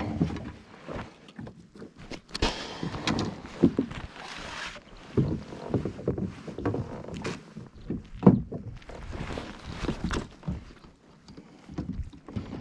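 Irregular knocks, thumps and rustling as a landed bass and the landing net are handled in a fishing kayak, with gear bumping against the hull.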